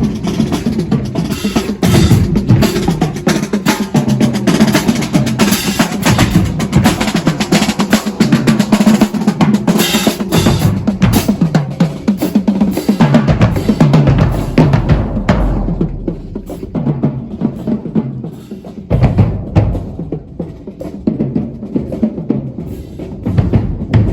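Marching band drumline playing a cadence on snare drums and bass drums, loud and dense. About fifteen seconds in the playing thins out to sparser drum hits.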